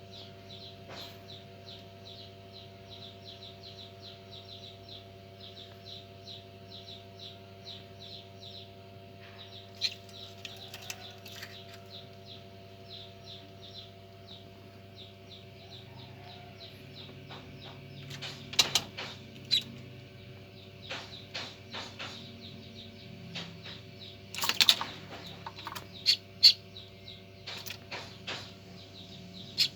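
Newly hatched Muscovy ducklings peeping in a quick, even series of high peeps over the steady hum of an automatic egg incubator. From about two-thirds of the way through, several loud, sharp clicks and knocks break in.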